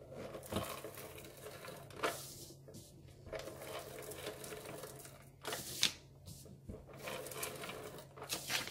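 Handheld tape gun pulling clear tape off its roll along the edges of a sheet of card, in stretches of rasping noise with three sharp snaps spaced about three seconds apart.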